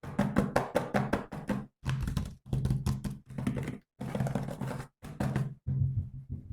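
Chopped, beat-like sound in short bursts: rapid clicking strokes over a low pitched hum, each burst cut off abruptly by a brief silence.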